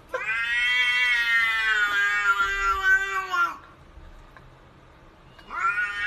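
A domestic cat meowing: one long meow lasting about three and a half seconds, then a second meow starting near the end.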